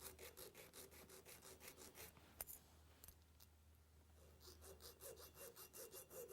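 Small No. 2 cut triangle file rasping on the steel teeth of a small three-tooth cutter in short, quick strokes, about five a second. It stops for a couple of seconds with a single click, then resumes.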